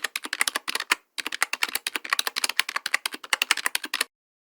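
Rapid typing on a keyboard, a fast run of clicks with a brief pause about a second in. The typing stops about four seconds in.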